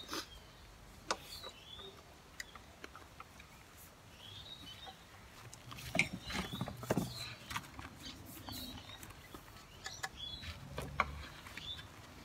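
Scattered light clicks and knocks from a carbon mountain bike being handled at the handlebar, loudest about halfway through and near the end, with birds chirping briefly now and then.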